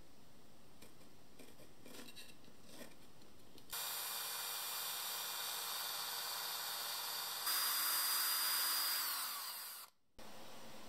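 Light pencil scratching on wood, then a power drill running steadily as it bores a pilot hole into the end grain of a square spruce timber. It gets louder about halfway through, then winds down in pitch and cuts off near the end.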